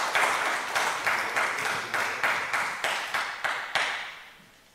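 Audience applause, a dense patter of many hands clapping, dying away about four seconds in.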